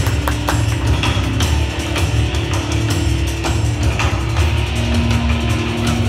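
Loud rock-style show music with a steady, heavy drum beat and guitar, played over the arena's loudspeakers.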